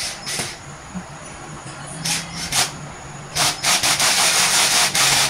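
Cordless drill driving screws into a particleboard cabinet panel: a few short bursts, then a longer continuous run of about two seconds near the end, with a gritty, rasping noise.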